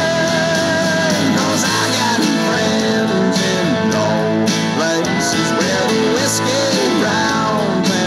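A song with a singing voice and guitar, played loud and steady through amplified loudspeakers.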